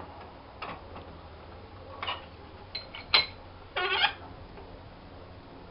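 A few short, separate scrapes and knocks as a sycamore walking cane is worked with a wood rasp and handled on the workbench, with a sharp click a little after three seconds and a brief pitched sound about four seconds in.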